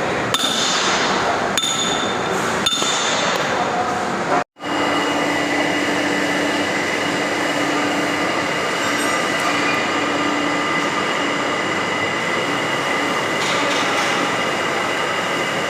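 A few metal knocks and clinks with a ringing tone. After a sudden break about four and a half seconds in, an electric motor runs steadily with a constant high whine.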